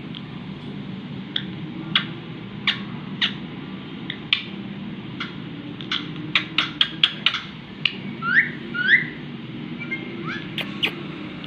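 Pet parrot calling in short, sharp chirps, with a quick run of them midway, then two rising whistles. A steady low hum runs underneath.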